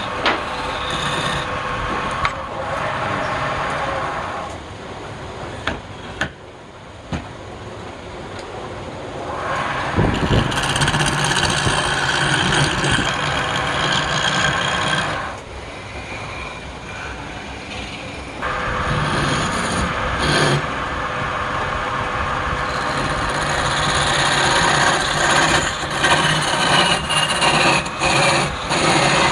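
Wood lathe running steadily while a tool is held against a spinning piece of palm wood, making a rasping scrape. The scraping eases off twice, about five seconds in and again about sixteen seconds in, leaving mostly the lathe's running sound.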